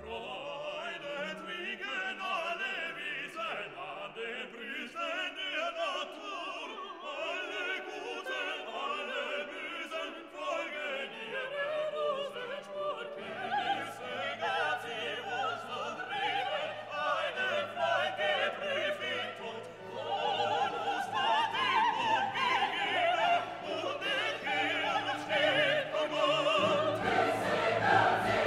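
Background classical music: a singing voice with orchestra, swelling louder about two-thirds of the way through.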